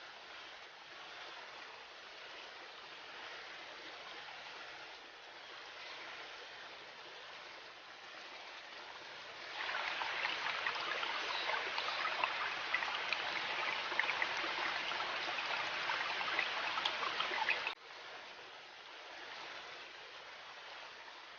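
River water running, a steady rushing. About halfway through it turns louder and splashier, full of small droplet ticks, then drops abruptly back to the softer rushing a few seconds before the end.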